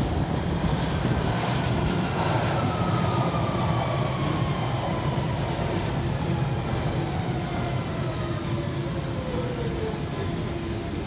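London Underground Central line 1992 Stock train pulling into the platform and braking, its motor whine falling steadily in pitch as it slows, over a steady low rumble of wheels on rails. The whine fades out near the end as the train comes to a stop.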